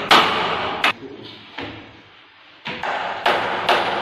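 Footsteps thudding on hollow wooden stair treads, about six heavy steps at uneven spacing, each ringing briefly through the staircase.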